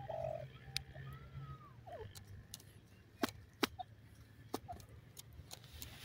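Grey francolin (teetar) giving soft short calls: a low note, then a whistled note that rises and falls, then a quick downward slur in the first two seconds. After that come a few faint chirps among several sharp clicks around the middle.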